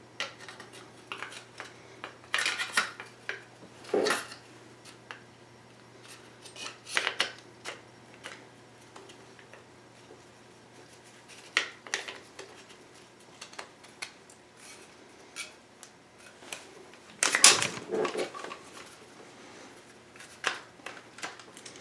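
Irregular clicks and clacks of a Magpul MOE polymer handguard half being worked into place on an AR-15, with a louder clatter about three-quarters of the way through.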